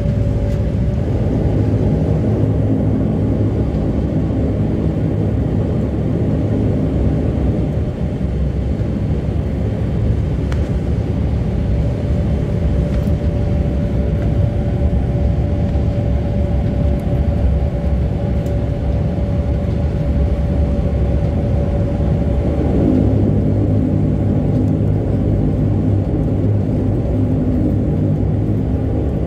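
Turboprop engine and propeller noise of a de Havilland Canada Dash 8-100, heard inside the cabin while the aircraft taxis after landing: a steady low rumble with a droning tone that holds through the middle and shifts in pitch near the end.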